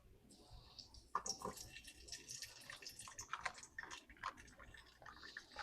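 Faint kitchen handling sounds: scattered small clicks and brief wet squishy ticks.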